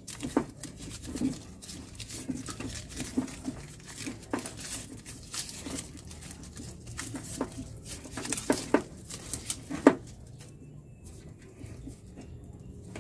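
Bundled wires of an old wiring harness rustling and clicking as they are pulled out by hand, with sharp knocks now and then. The handling goes quiet about ten seconds in.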